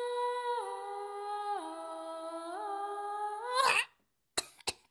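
A short tune of long held notes, stepping down in pitch and back up, ending in a quick flourish about three and a half seconds in, followed by a few sharp clicks.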